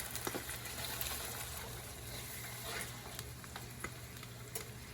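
Chili-soy sauce sizzling in a hot pan as cornstarch water is added to thicken it, a steady sizzle with scattered light clicks.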